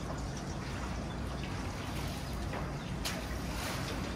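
Swimming pool water lapping and trickling, a steady wash of water noise with a brief louder splash about three seconds in.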